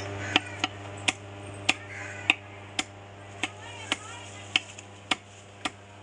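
A heavy knife chopping fish into chunks on a wooden block: about eleven sharp strikes, roughly two a second, over a steady low hum.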